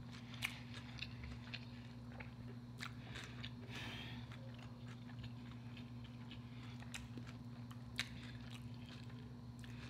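A person chewing a fried fish taco: soft mouth sounds with scattered faint crunches and clicks. A low steady hum runs underneath.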